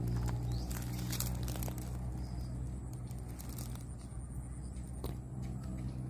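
A steady low hum, like a distant motor running, with a few sharp crackles and clicks scattered through it.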